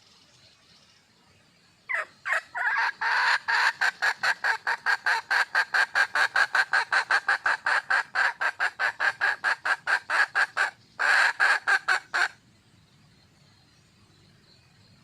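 Wild junglefowl hen calling to attract a male: a rapid run of short, even clucks, about four a second, lasting some eight seconds, then a brief pause and a shorter run.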